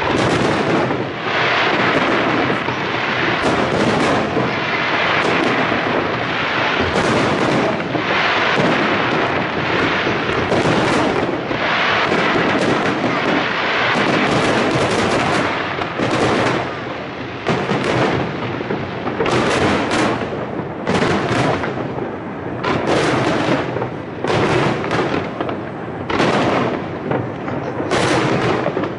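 Barrage of aerial firework shells bursting, a dense, near-continuous run of bangs and crackle; about halfway through, the bangs thin out into separate reports about once a second.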